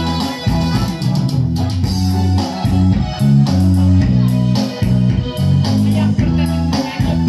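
Loud music with guitar and a prominent bass line over a steady beat.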